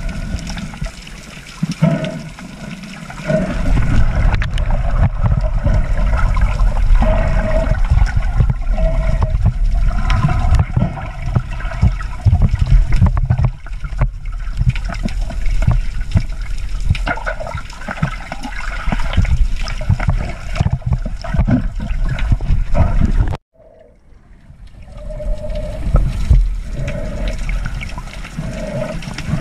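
Muffled underwater water noise picked up by a camera moving through the sea: a heavy, uneven low rumble of water rushing and sloshing around the camera housing. About 23 seconds in it cuts out abruptly for about a second, then comes back.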